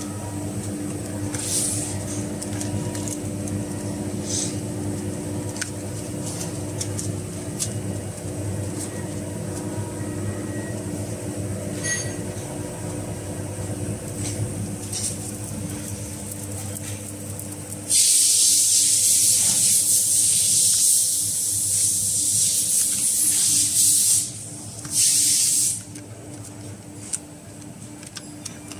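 Steady machinery hum with scattered light clicks as roll film is threaded by hand through the straw packing machine. About eighteen seconds in, a loud hiss starts, runs for about six seconds, breaks off briefly and returns for about a second.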